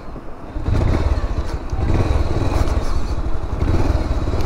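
Bajaj Pulsar 180's single-cylinder engine running, becoming much louder and heavier less than a second in and then holding steady.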